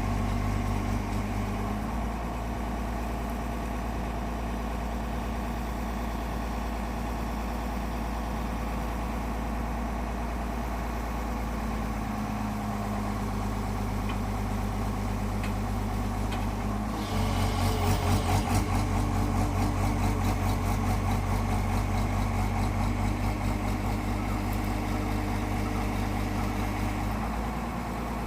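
Excavator's diesel engine running steadily while driving a heavy-duty auger drill. About two-thirds of the way in, it grows louder with a pulsing, grinding edge for about ten seconds as it comes under load, then eases back near the end.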